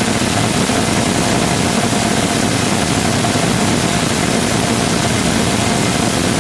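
Rotating detonation rocket engine combustor firing on a test stand: a loud, steady rushing noise with a thin steady tone running through it.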